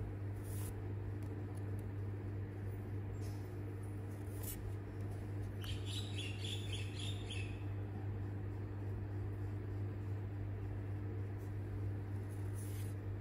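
Steady low electrical hum. Over it come soft slides of trading cards being swapped by hand, about half a second in and again near the end, and a short run of faint high squeaks about six seconds in.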